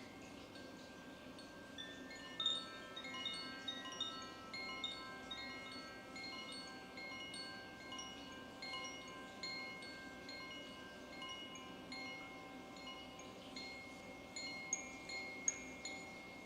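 Wind chimes tinkling: many high, ringing notes struck irregularly and overlapping as they die away, with clusters of louder strikes about two seconds in and again near the end.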